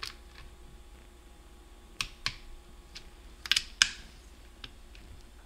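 Ratchet-head torque wrench tightening transmission case bolts to 8.7 foot-pounds: a handful of sharp metallic clicks spread out over several seconds, the loudest about four seconds in.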